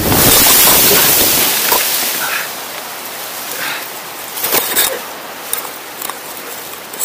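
A paraglider harness crashing into dense shrubs in an uncontrolled landing. For about the first second and a half there is a loud rush of wind and thrashing leaves and branches. Then comes quieter rustling of foliage, broken by scattered cracks and snaps of twigs.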